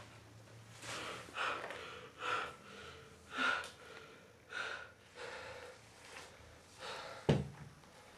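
A man breathing heavily and raggedly in gasps, about one breath a second. A single sharp thump comes about seven seconds in.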